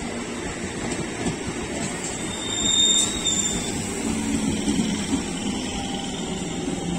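Coaches of an electric multiple-unit local train running along the track, a steady rumble of wheels on rails. About three seconds in, a brief high-pitched squeal rises above the rumble.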